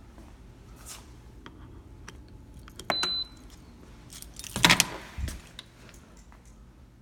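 A wall-mounted door access card reader gives one short, high electronic beep about three seconds in. About a second and a half later comes a loud rattling clatter, with a few light ticks around it.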